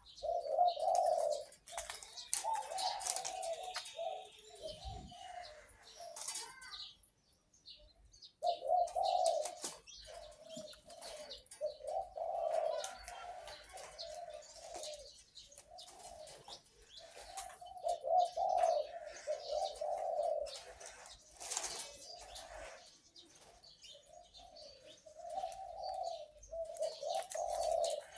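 A captive-bred dove cooing in repeated phrases a few seconds apart. Its breeder rates its voice as the biggest in his camp. Other birds chirp sharply in the background.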